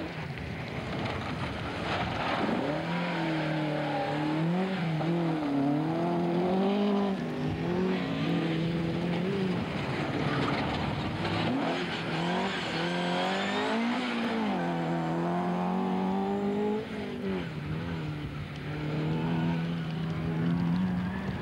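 Rally car engines revving hard as the cars race past one after another on a loose gravel track, the pitch climbing and dropping repeatedly with gear changes and lifts. A steady hiss of tyres on loose surface runs under the engines.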